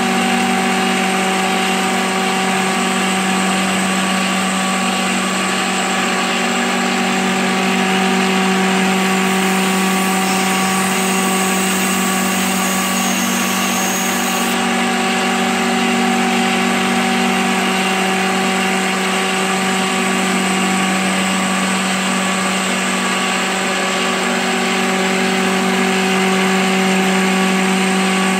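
CNC milling machine's spindle running steadily at 2500 RPM while an end mill cuts a pocket in cast iron: a steady mechanical hum with several held tones over a hiss.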